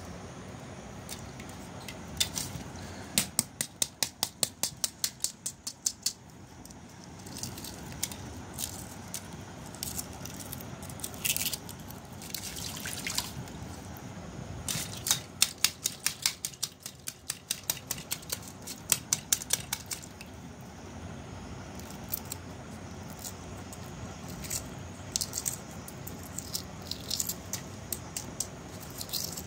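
Boiled eggshell crackling and clicking as hard-boiled eggs are cracked and peeled by hand over a bowl of water, coming in several runs of rapid clicks, with light splashing of water.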